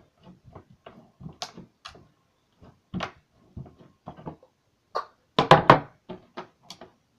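Homemade slime being squeezed and played with in the hands, making irregular small clicks and pops, with a louder cluster of crackles about five and a half seconds in.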